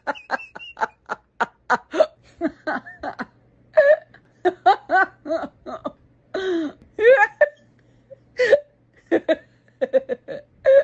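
A woman laughing hard in quick repeated bursts, a long cackle whose pitch swoops up and down, with a faint steady hum behind it from about two seconds in.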